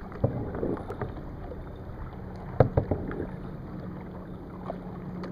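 Kayak on the water: a steady wash of water and wind noise over a low steady hum, with three sharp knocks in quick succession midway through.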